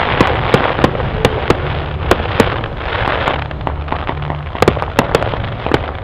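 Fireworks display: an irregular string of sharp bangs, several a second, over dense crackling. The crackle thins out about halfway through.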